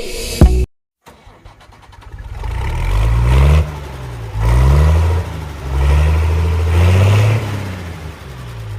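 A vehicle engine, as a cartoon sound effect, starts up and revs several times, its pitch rising and falling with each rev. A short burst of music ends just before it, with a brief silence in between.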